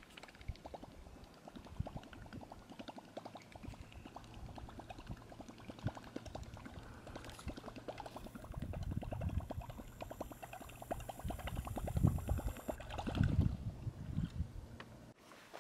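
Topwater musky lure being reeled across calm lake water, gurgling and splashing steadily. Heavier splashes come near the end as it nears the boat.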